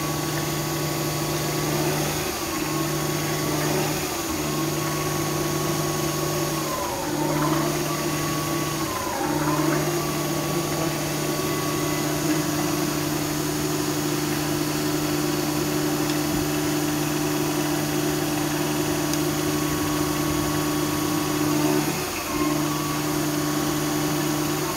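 Governor test bench driving a freshly overhauled Zexel RHD6 hydraulic governor, running with a steady mechanical hum and a higher whine. The hum breaks off briefly and the whine dips in pitch and recovers about five times.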